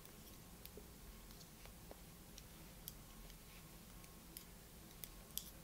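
Faint, scattered clicks of double-pointed knitting needles tapping together while knitting one-by-one ribbing, over quiet room tone.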